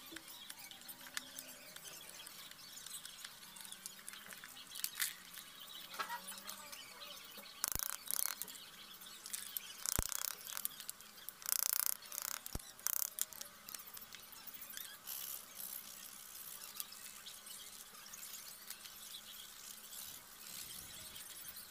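Hand tools cutting and scraping between the links of a carved teak wood chain: short bursts of scratchy strokes from a blade and abrasive on the wood, with a few sharp clicks.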